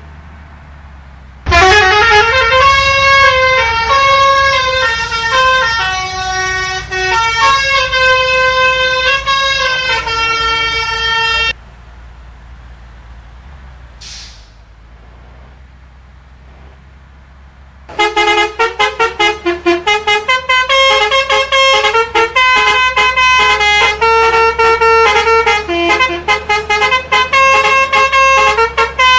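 Bus's telolet basuri multi-tone musical horn playing a tune: the first note slides up, and a melody of held notes stops abruptly about eleven seconds in. After some six seconds of only a low rumble, the horn starts again with a fast run of short, clipped notes.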